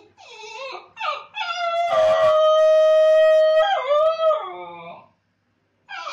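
Basenji howling while left alone with its owner gone: a few short rising whines, then one long held howl about a second and a half in that lasts some two seconds and breaks into a wavering fall. After a brief pause, a new call starts near the end.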